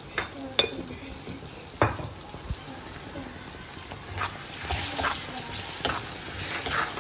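Metal ladle stirring chillies, tomato and brinjal in a metal kadai: the vegetables sizzle steadily, and the ladle clinks and scrapes sharply against the pan every second or so.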